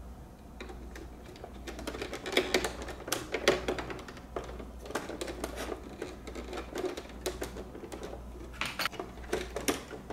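Quick run of small plastic clicks and scrapes as a metal pick pries at the plastic speaker connector in the back of a Mercedes W220 instrument cluster housing. The clicks come thickest a couple of seconds in and again near the end.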